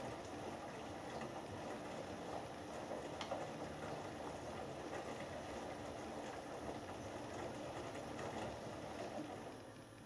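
Hoover Dynamic Next DXA610IW3 front-loading washing machine in its main wash: the drum turning, with wet laundry tumbling and sloshing in the water. The drum stops about nine and a half seconds in and the sound drops.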